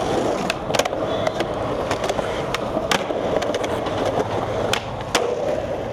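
Skateboard wheels rolling steadily over rough asphalt, with sharp clicks here and there.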